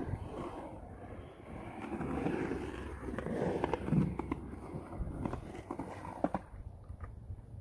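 Skateboard wheels rolling through a concrete bowl, the rumble swelling and fading as the rider carves, with several sharp clacks of the board in the middle.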